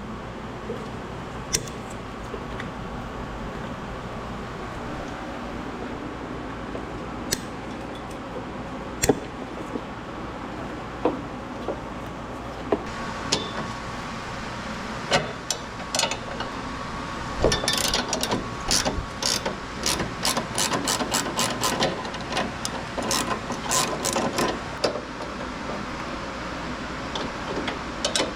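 Hand tools working on a car engine bay: scattered clicks and knocks, then a fast run of clicks past the middle, over a steady background hum.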